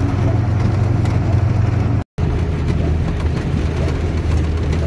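Steady low engine drone and tyre noise from inside the cab of a vehicle driving on a wet road. It drops out for an instant about two seconds in.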